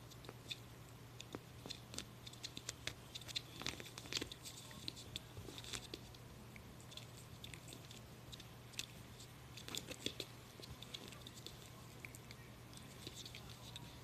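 Toy poodle snapping at and crunching small dry dog treats, a scatter of faint quick clicks and crunches that come in flurries, over a steady low hum.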